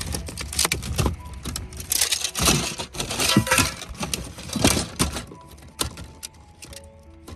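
Irregular clicks, taps and scrapes of small hard objects being handled, with a few louder knocks in the middle, over faint held musical notes.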